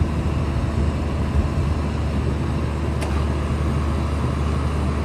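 Rubber-tyred gantry crane running with a steady low drone, with one brief click about three seconds in.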